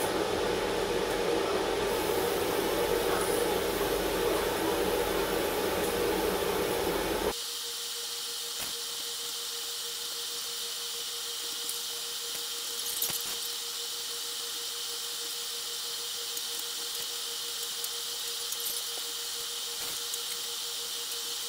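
Aerosol spray paint cans hissing steadily as paint is sprayed onto a wall. About seven seconds in the sound changes abruptly to a thinner, higher hiss with a faint steady hum.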